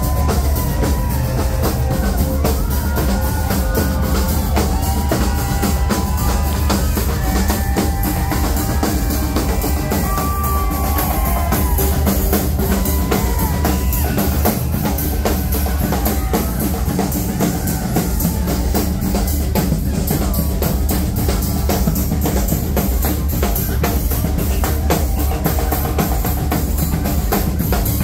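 A live band's drums playing together: a drum kit and snare drums beating out a steady, loud rhythm. Wavering pitched tones run over the drums for roughly the first half.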